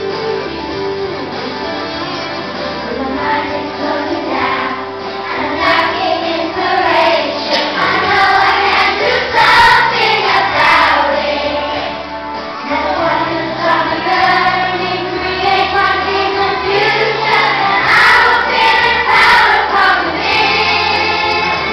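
Children's school choir singing a song together.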